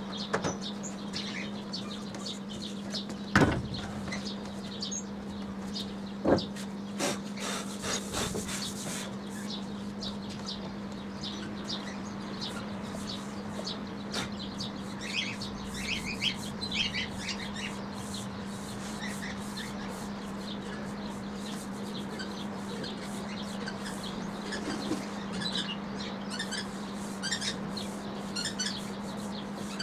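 Birds chirping now and then over a steady low hum, with two sharp wooden knocks about three and six seconds in as timber boards are set down.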